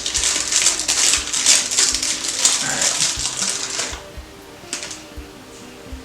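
Candy bar wrapper crinkling and crackling as it is worked open, stopping about four seconds in. Soft background music with a light beat plays under it and carries on alone afterwards.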